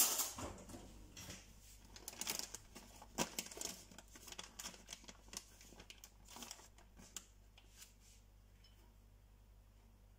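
Crinkling of a plastic bag of grated cheese being handled, with scattered light clicks and taps that die away about eight seconds in.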